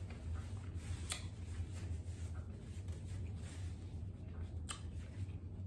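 Quiet room tone with a steady low hum and a few faint short clicks.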